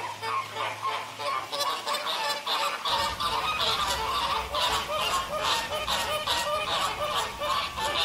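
A flock of American flamingos honking: many short, goose-like calls overlapping in a constant clamour.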